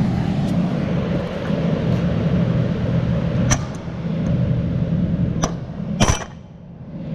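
A steady fan hum with three sharp metal clinks from tools on the header knife's bolts and sections. The last clink comes about six seconds in, and the hum drops away just after it.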